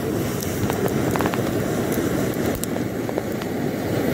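Pressure stove burner flaring up as it is lit, burning with a steady rushing noise while the flame is still large and yellow.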